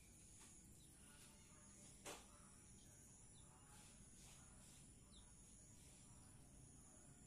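Faint outdoor ambience close to silence: a steady high insect buzz with occasional faint bird chirps, and one short sharp click about two seconds in.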